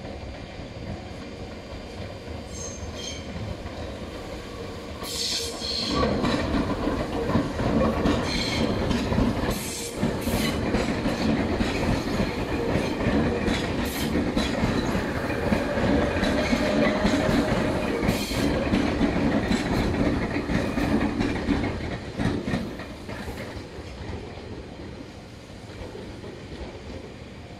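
Tobu 100 series Spacia limited express electric train running past, its wheels clattering over the rails. It gets loud about six seconds in, stays loud with scattered sharp clicks, and fades from about twenty-two seconds as it moves away.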